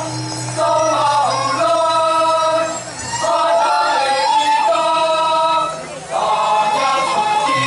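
Balinese gong kebyar gamelan playing a dance accompaniment: bronze metallophones ring in layered melodic phrases, with short breaths between phrases about three and six seconds in. A deep gong note rings under the opening second.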